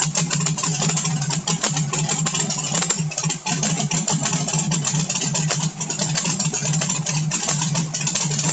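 Turbocharged small-block V8 on E85, fed by a CSU blow-through carburetor, idling steadily while warming up after a cold start with no choke or extra cold-start fuel. The engine is still well below operating temperature.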